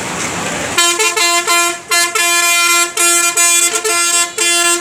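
Street and crowd noise, then from about a second in a loud vehicle horn honking in a quick run of short blasts with brief gaps between them.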